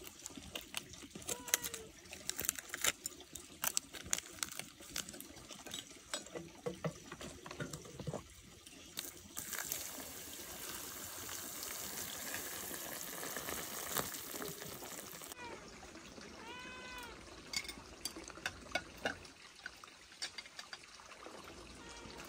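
Several short rising-and-falling animal cries among scattered clicks and knocks, with a stretch of steady hissing noise in the middle.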